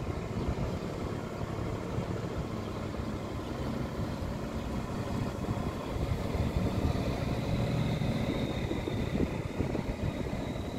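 Scania R540 truck's diesel engine running at low speed as it hauls a loaded nine-axle trailer rig past, a steady low rumble that grows louder from about six seconds in as the truck comes closer. A faint high whistle comes in over the second half.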